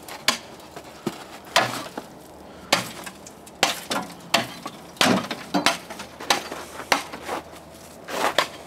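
A shovel and ice scraper chopping at frozen ice and snow: a string of irregular sharp, clinking strikes, roughly one or two a second.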